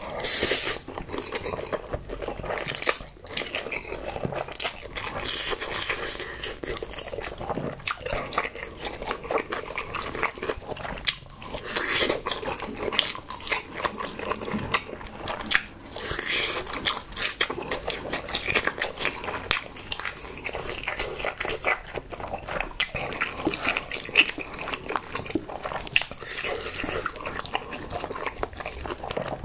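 A person eating: several loud slurps of instant ramen noodles, with wet chewing and smacking, and bites of a block of Spam in between.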